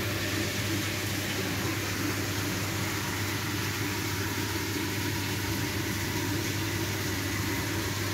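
Steady low machine hum under an even hiss, unchanging throughout.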